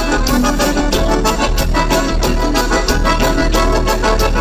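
Instrumental break of live gaúcho dance music, with a keyboard playing organ-like held chords over a steady, even beat.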